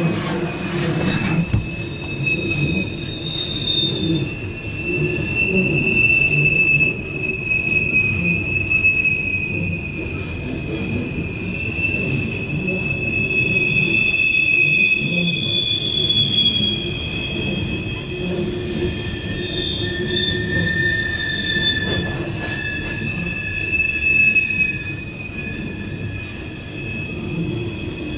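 Loaded CSX coal train rolling past, its steel wheels squealing against the rails in several long, high-pitched tones that come and go and overlap, over the steady rumble of the cars. The squeal comes from the wheel flanges grinding as the train takes the curve from track 2 onto the west leg.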